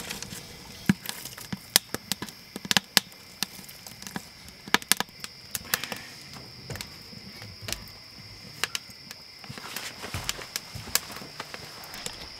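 Wood fire crackling and popping in a Solo Stove stainless-steel fire pit, with irregular sharp pops and knocks as wood is fed in. A faint steady high-pitched tone runs underneath.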